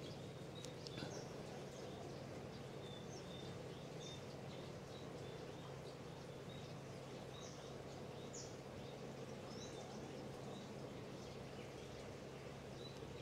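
Faint birds chirping, short high chirps coming irregularly, over a steady low hum of background noise.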